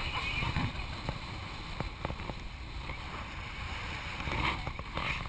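Wind on the microphone and water rushing along the hull of a sailing yacht under way, with a few light knocks.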